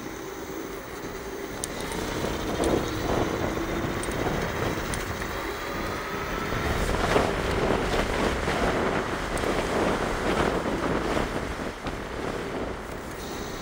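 Wind rushing over the microphone and tyre noise while a Bluetran Lightning is ridden at top speed along a paved path. The rush swells a couple of seconds in and eases near the end, with a faint whine rising and falling on top.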